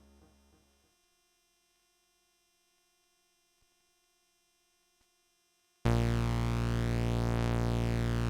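Behringer Phara-O Mini analogue synthesizer, dry: a repeating low note pattern fades out within the first second, then near silence with two faint clicks, then about six seconds in a loud held low note, rich in overtones, starts abruptly and holds steady.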